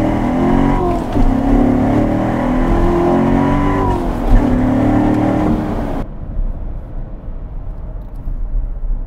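2014 Chevrolet Corvette Stingray's 6.2-litre LT1 V8 at full throttle, revs climbing and dropping back at upshifts through its 7-speed manual gearbox. About six seconds in the sound falls abruptly to a quieter low rumble.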